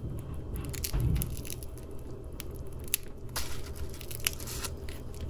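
Crisp oven-baked rolls of thin markook flatbread crunching and crackling as fingers press and handle them, in a scatter of short, sharp crackles.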